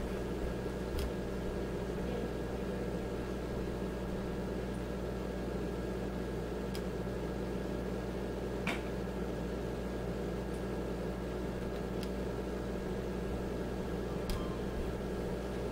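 Steady hum of a running kitchen appliance, with a few faint clicks scattered through it.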